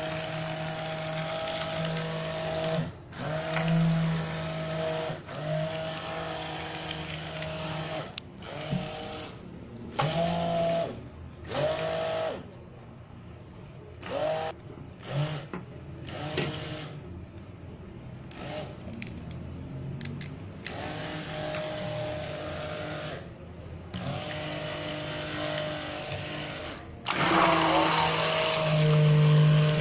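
Electric immersion (stick) blender whipping a thick cream in a steel pot: a steady motor whine that stops and starts again several times, with its pitch sagging briefly in places, and loudest near the end.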